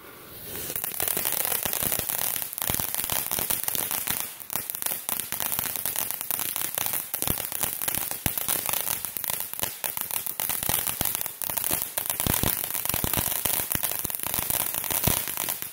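Ground firework fountain burning: a steady hiss thick with rapid crackling pops as it throws out crackling sparks.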